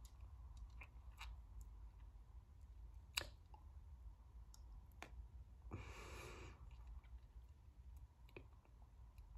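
Near silence: small-room tone with a few faint clicks and one soft, breathy exhale about six seconds in, from a woman who is choked up with emotion.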